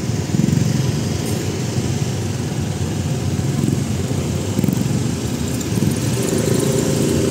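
Several small motorbike and scooter engines running in slow, crowded traffic, heard from one of the moving bikes.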